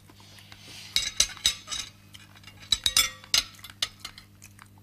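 Cutlery clinking against plates during a meal: a series of sharp, short clinks, bunched about a second in and again around three seconds in, over a steady low hum.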